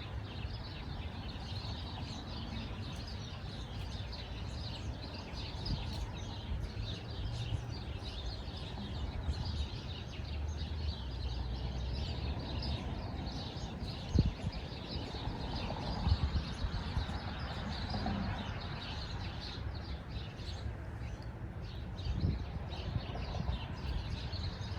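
Many small birds chirping continuously in short, rapid notes over a steady low background rumble, with a few brief thumps in the middle and near the end.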